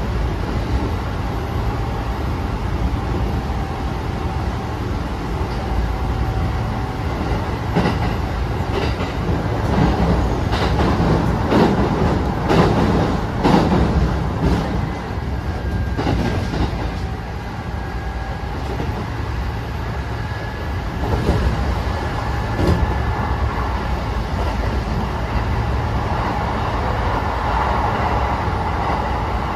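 Cabin running sound of a Kintetsu 9000 series electric train at speed: a steady rumble of wheels on rail, with a dense run of sharp wheel clacks over rail joints, loudest in the middle, as it crosses a bridge over water.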